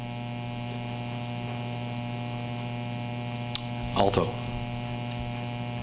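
Steady electrical mains hum, a low drone with a fainter overtone above it. A light click comes a little after three and a half seconds.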